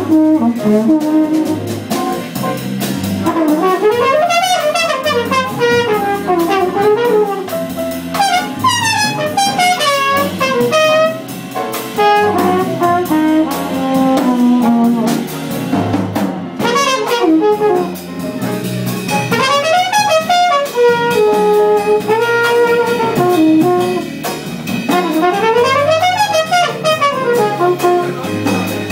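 Live jazz combo playing: a trumpet solos in fast runs that sweep up and down, over piano, electric guitar and drums.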